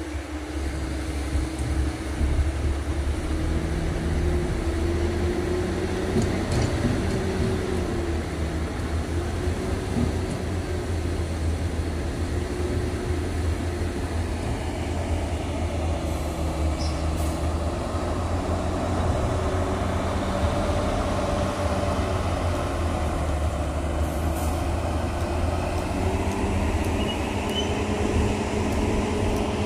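Heavy diesel engine running steadily, with a deep hum and a pitch that wavers slightly up and down.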